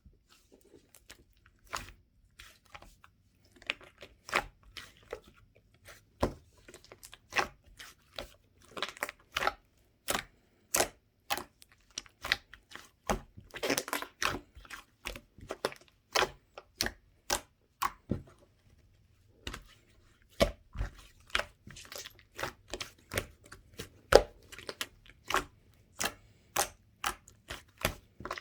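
Mint-chocolate mixed slime squished and pressed by hand, giving a run of sharp, irregular pops and clicks, about one to two a second, with a short lull about two-thirds of the way through.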